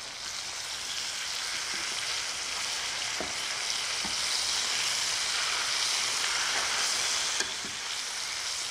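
Flour-dredged chicken breasts sizzling steadily as they sear in hot oil and butter in a skillet, with a few light clicks of metal tongs against the pan.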